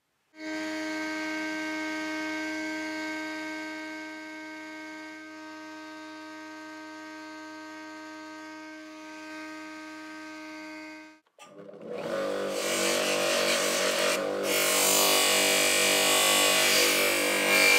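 A small electric motor running with a steady hum. It stops about 11 s in, and a louder, harsher power tool starts about a second later, with a hiss over its whine.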